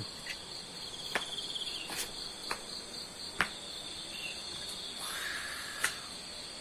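Steady chorus of insects, likely crickets, with continuous high trilling and a pulsing trill a little lower. A handful of sharp clicks stand out, the loudest a little over three seconds in and again near the end.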